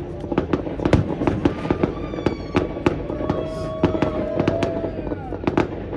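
Fireworks display: a rapid, irregular run of sharp bangs and pops, several a second, from aerial shells and low-level effects.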